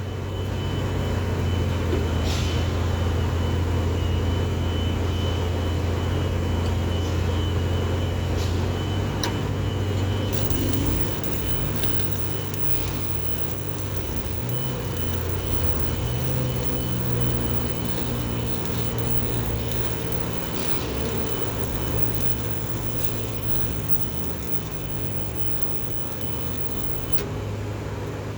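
Stick welding with 7018 electrodes over painted steel: the arc hisses and crackles steadily over a constant low machine hum, with a few sharp pops.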